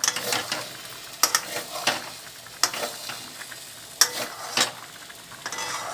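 A spatula stirring and scraping semolina (suji) as it roasts in a metal kadai, in sharp scraping strokes roughly once a second. A low frying sizzle runs between the strokes.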